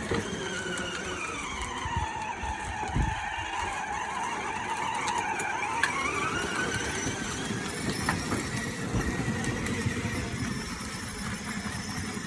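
Toy car running: a whine that sinks lower in pitch and then rises back over a few seconds, over a low rumble.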